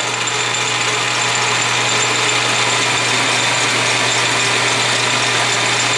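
South Bend 10-inch heavy lathe running steadily with a low hum and hiss, its carbide tool taking a light first cut on a taper.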